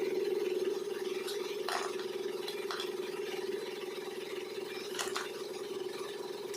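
Steady mechanical hum with a few scattered clicks and clinks of metal tools during work on a car's front suspension.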